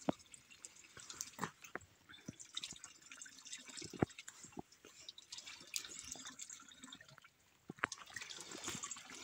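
Hands dipping into a small spring pool, with water dripping and trickling back from them in faint, scattered small splashes.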